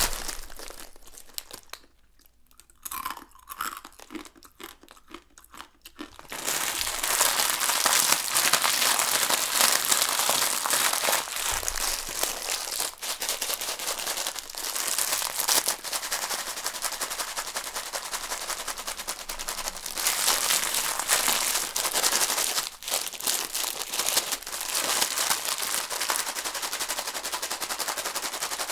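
Dry instant noodles crunching: a few scattered faint crackles, then a dense, continuous crackling from about six seconds in.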